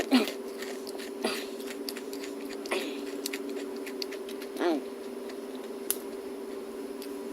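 A person biting and chewing burnt, hard pizza crust close to the microphone, with scattered crisp crunches and a brief hummed "mm" about two-thirds of the way in. A steady low hum runs underneath.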